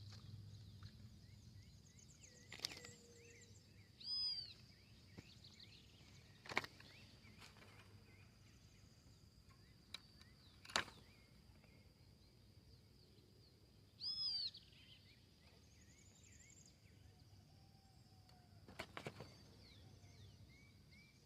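Quiet open-air ambience with a steady high insect-like whine, broken by two loud bird calls about ten seconds apart, each a quick run of arched, falling notes. A few sharp single knocks fall in between.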